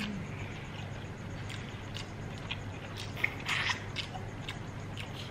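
Close-miked eating sounds: chewing and small wet mouth noises with scattered light clicks, and a louder wet smack about three and a half seconds in.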